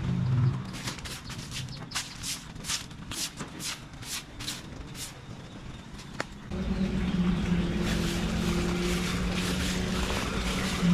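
Rhythmic brushing strokes, about three a second, as leaves and debris are swept up, stopping about five seconds in. About six and a half seconds in, a small engine starts running steadily and louder.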